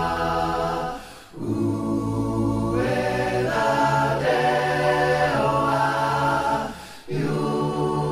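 Background music: a cappella voices singing long held chords. The chords break off briefly about a second in and again about a second before the end.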